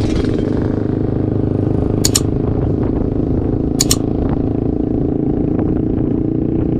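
An engine running steadily at an even speed, with a pair of short sharp clicks about two seconds in and again about four seconds in.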